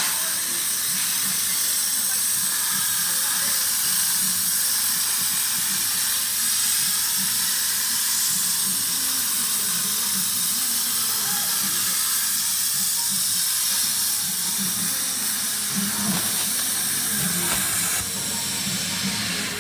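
Plasma cutter arc hissing steadily as it cuts through 5 mm sheet, with a rough crackle underneath; it drops a little in level near the end.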